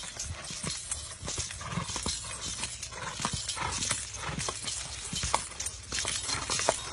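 Hooves of two ridden horses striking a dirt track in a quick, uneven patter of many beats.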